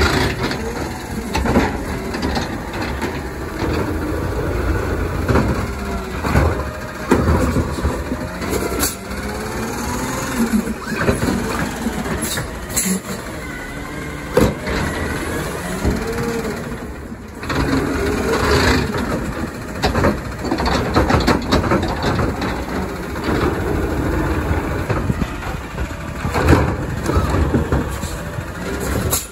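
Autocar McNeilus ZR automated side-loader garbage truck working its lift arm: the engine revs up and down as the hydraulic arm raises, dumps and lowers a cart. Several sharp knocks come from the cart and arm.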